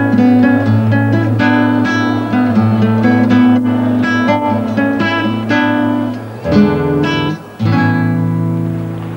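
Background music: a guitar playing quick plucked notes and strums over a steady low note.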